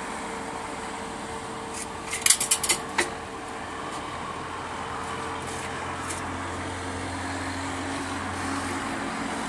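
A quick run of five or six sharp metal clicks and knocks about two seconds in, from the hand brake lever and its mounting on a homemade steel car frame being worked by hand. Under it a steady background hum, with a lower hum joining about halfway through.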